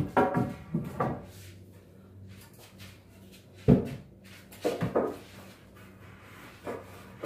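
Long wooden boards being handled and stood against a wall: scrapes and knocks of wood on wood, with one sharp knock about halfway through.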